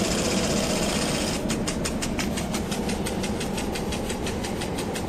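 Spray from a lawn sprinkler hitting the outside of a tent: a steady hiss of water on the fabric, which about a second and a half in turns into a rapid, even patter of hits as the sprinkler's jet sweeps across it.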